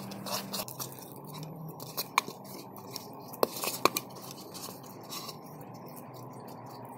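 A fork scraping and clicking against a mixing bowl while crumbly cookie dough is worked, with a few sharp clicks about two seconds and three to four seconds in. It then goes quieter as the dough is pressed together by hand.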